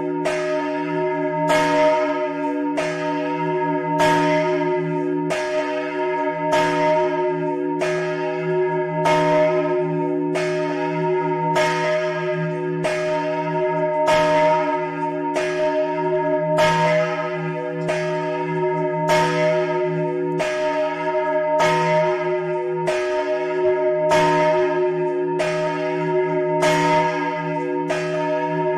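Large church bell swung in full (a distesa) by a rope from the belfry, its clapper striking evenly about one and a half times a second. This is the parish's biggest bell, recast by Capanni in 1952 and tuned to E-flat, rung alone as a funeral peal. Its deep hum and overtones ring on continuously between the strokes.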